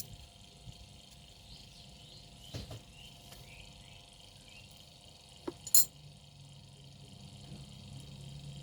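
Metal clinks as planer blade parts and tools are handled: a soft knock, then two sharp clinks about five and a half seconds in. Steady insect chirring underneath.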